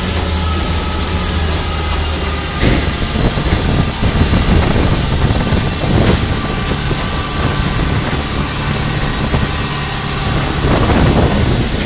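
Motorboat under way at speed: the engine runs with a steady low drone while water rushes along the hull, with a couple of knocks as the hull meets waves.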